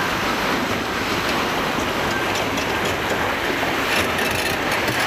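Steady rushing noise of a moving amusement ride heard from a rider's seat: air rushing past and the ride's machinery rumbling underneath, with a few faint clicks near the end.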